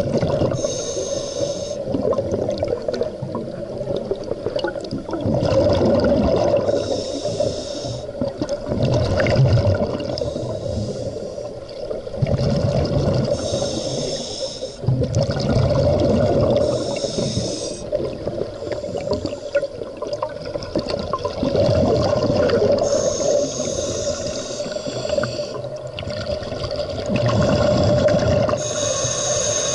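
Scuba diver breathing through a regulator underwater: a drawn inhale, then a burst of exhaled bubbles, repeating every few seconds, over a steady hum.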